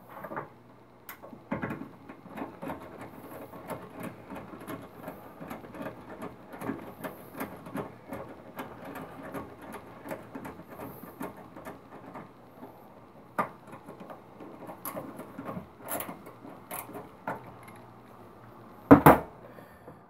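A hand screwdriver turning a screw into the sheet-metal mounting of a microwave's magnetron, a dense run of small clicks and scrapes. A louder knock comes near the end.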